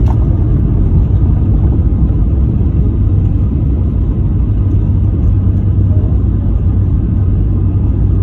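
Steady low rumble of an Airbus A320 heard from inside the passenger cabin: engine and airflow noise with no sudden changes.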